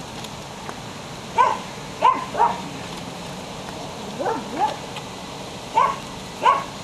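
Belgian Shepherd puppy barking in short, high yaps, seven in all: a single bark, then three pairs.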